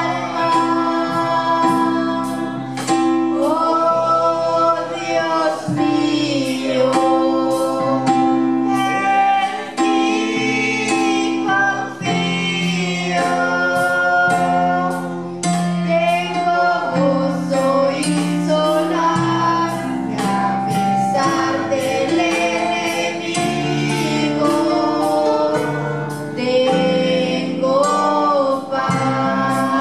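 A woman singing a worship song into a microphone over sustained instrumental chords, with a steady percussive beat about twice a second.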